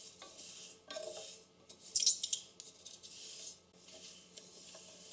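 Wooden spatula stirring dry split mung beans in a stainless steel pressure cooker as they dry-roast: the grains rustle and scrape across the pot's bottom in repeated strokes, roughly one a second.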